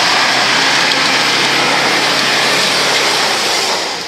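Jeep Wrangler Unlimited working hard up a rutted dirt climb: a steady engine hum under a loud rushing noise, which eases off near the end.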